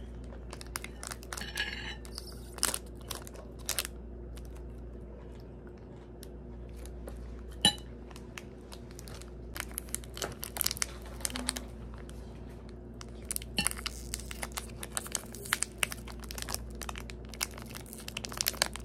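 Plastic snack wrapper crinkling and crackling in the hands in irregular bursts as it is twisted and pulled at while it resists opening. A steady low hum runs underneath.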